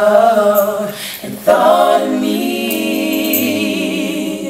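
Men's and women's voices singing a cappella in close gospel harmony, holding the word "fall". About a second in the chord breaks briefly. A new chord is then held with vibrato until near the end.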